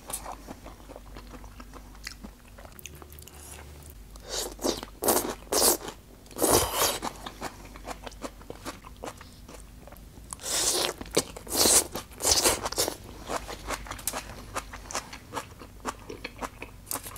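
Close-miked eating: crunchy bites and chewing of skewered vegetables, green pepper and bok choy. Two clusters of loud crunches come about five seconds in and again about ten seconds in, with small wet mouth clicks between.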